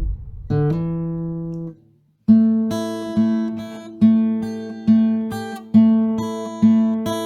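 Guitar music: a held note, a brief break about two seconds in, then chords struck in a steady rhythm, each ringing out and fading.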